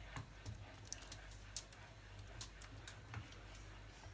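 Faint, uneven light clicks of a stirring utensil against a pan as a cornstarch-thickened lemon cream is stirred, over a low steady hum.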